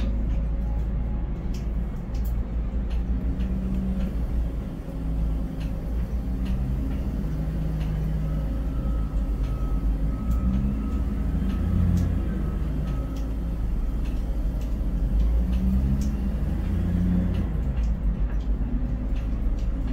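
Container crane machinery running, heard from inside the operator's cab: a steady deep rumble with a low motor hum that shifts in pitch as the empty spreader is trolleyed out over the ship and lowered, with a few light clicks.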